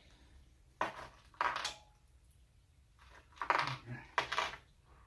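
Small metal screws and nuts clinking and rattling as the hardware sets are handled, in four short bursts that come in two pairs.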